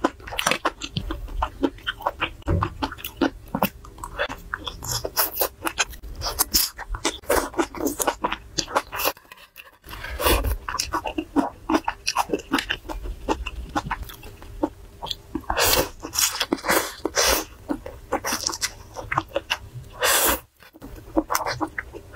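Close-miked eating of a garlic clam and vermicelli dish: wet chewing, slurping and lip smacks in quick, irregular clicks, with two short pauses.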